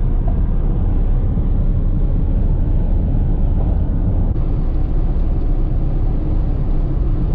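Loud, steady low rumble of a car driving at speed: road, engine and wind noise with no breaks.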